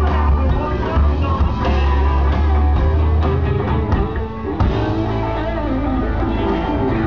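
Rock music with guitar and a heavy bass line, dipping briefly about four seconds in before it picks up again.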